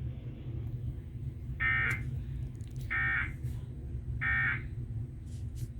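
Emergency Alert System end-of-message data tones, which mark the end of the alert: three short digital bursts about 1.3 seconds apart. A steady low hum runs underneath.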